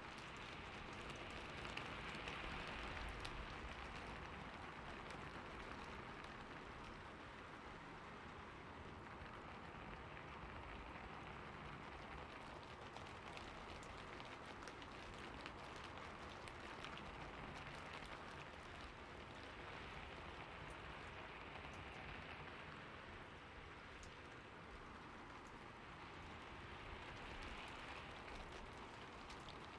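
Steady rainfall: an even, soft hiss of rain with faint ticks of individual drops, swelling slightly a few times and easing again.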